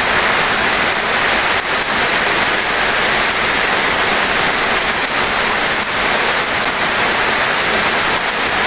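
Steady rain falling on grass, crops and open fields: an even hiss with no letup.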